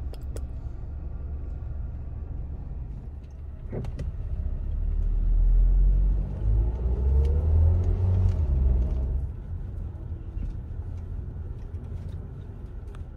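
Car driving, heard from inside the cabin: a steady low engine and road rumble that grows louder about halfway through, then eases back.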